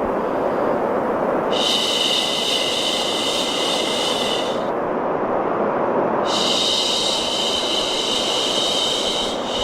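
A person shushing, "shhh", in long even strokes of about three seconds each, two full shushes with a third starting right at the end. Beneath them runs a steady low rushing white-noise bed meant to soothe a baby to sleep.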